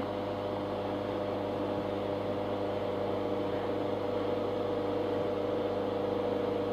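Steady machine hum: a low drone with a few held tones above it, unchanging throughout.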